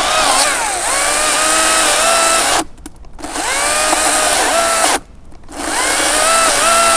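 Makita 40V cordless electric chainsaw cutting through a tree trunk, its motor whine sagging in pitch under load. Twice, about two and a half and five seconds in, it stops for half a second and then spins back up.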